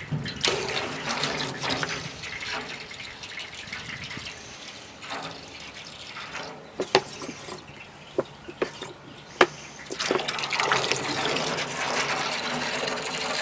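Water running and splashing into a metal soak tank of green degreaser, frothing up as dish soap is squeezed in. A few sharp clicks come midway, and the running grows louder again near the end.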